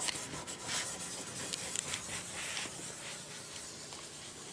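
Light, irregular scratching and rubbing on the car's bodywork while the sticker's position is marked out and the sticker is worked into place.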